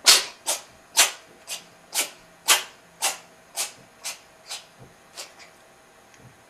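Domestic cat in a fit of sneezing and coughing: about a dozen short, sharp, breathy bursts, roughly two a second, growing weaker and stopping a little after five seconds in.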